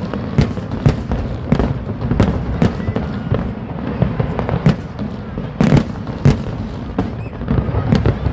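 New Year fireworks going off: a rapid, irregular string of bangs and pops, a couple a second, over a constant low rumble of distant bursts.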